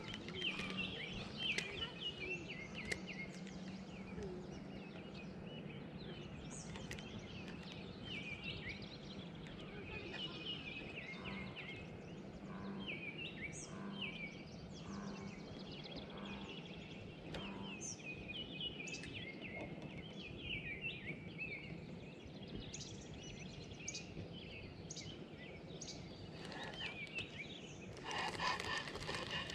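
Small birds chirping and singing in short, scattered calls over faint outdoor background noise and a low steady hum, with a louder burst of noise near the end.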